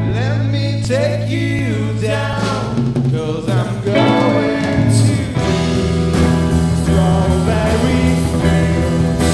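Psychedelic rock band recording with electric guitars, bass and drums, and singing voices; gliding pitched lines about half a second to three seconds in over sustained bass notes.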